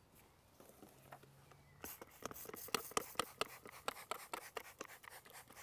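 Trigger spray bottle squirted again and again at a glass pane: a fast run of short spritzes, several a second, starting about two seconds in.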